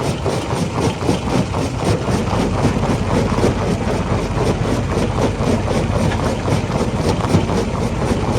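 Stone crusher machine running, a steady heavy mechanical din with a fast regular clatter of about five ticks a second. A deep hum joins about two seconds in.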